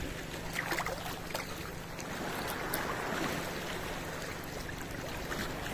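Shallow sea water washing and sloshing at the water's edge, small waves moving up and back, as a steady rushing hiss with a few faint splashes.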